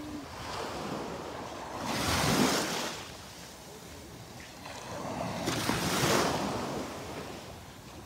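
Small waves lapping and washing up a sandy beach: two swells of surf noise about three and a half seconds apart, the first about two seconds in.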